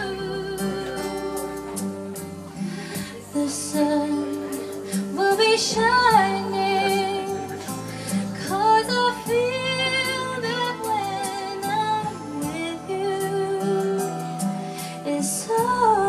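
A woman singing a slow ballad live into a microphone over a karaoke instrumental backing track, holding long notes with vibrato.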